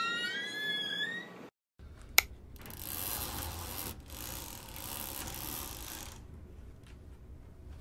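A door hinge creaking with a drawn-out rising squeal as the door swings open, breaking off about a second and a half in. A single sharp click follows, then a steady hiss over a low hum that fades after about six seconds.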